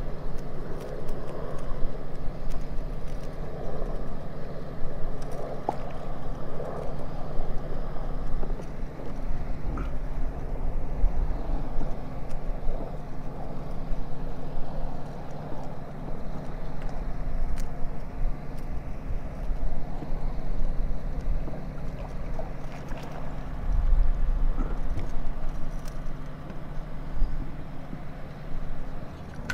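A steady mechanical hum at an unchanging pitch, with some low rumbling.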